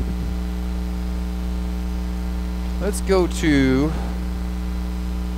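Steady electrical mains hum running under the recording, with a brief spoken word about three seconds in.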